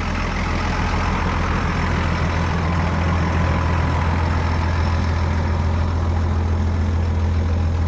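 Tractor engine running steadily with a low, even drone.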